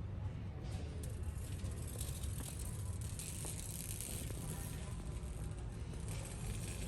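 A steady low rumble with a shifting hiss over it that grows louder about a second in.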